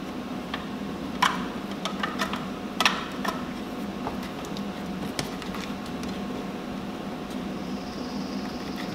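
A few sharp clicks and taps from the plastic tail light assembly and its wiring being handled and fitted, over a steady low hum.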